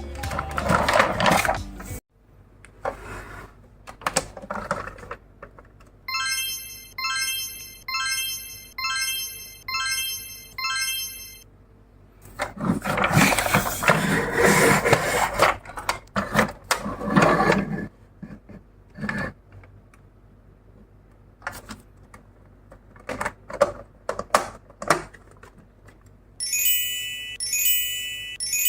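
Small clicks and knocks and a papery rustle as die-cast toy cars and their boxes are handled, with a repeating electronic chime-like tone laid over it in two stretches. A short bit of music ends abruptly about two seconds in.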